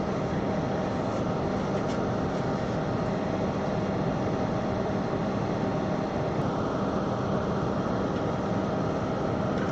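Hot-air rework station's blower running with a steady hiss and low hum while the station warms up to its set 370 degrees.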